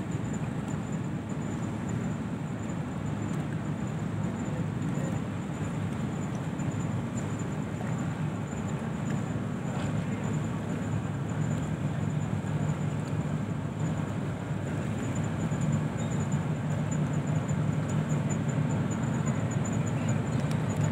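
Steady low rumble of the passenger ship KM Umsini's engines as it moves astern off the quay, growing a little louder in the second half.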